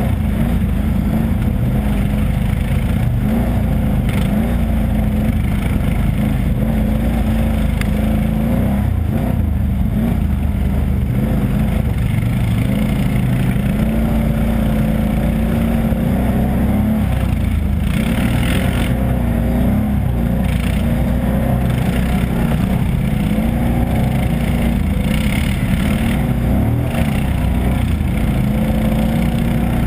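ATV engine running on a trail ride, its pitch rising and falling with the throttle. A few brief rushes of hiss come about two-thirds of the way through.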